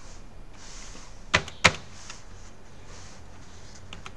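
Two sharp clicks about a third of a second apart, with a couple of faint ticks near the end: key presses on a computer keyboard, advancing presentation slides.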